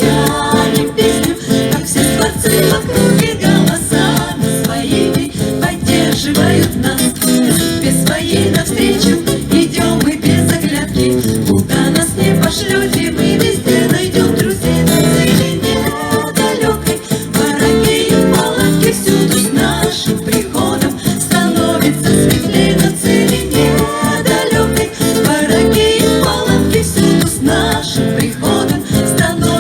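A live band playing a song on acoustic guitar, with singing.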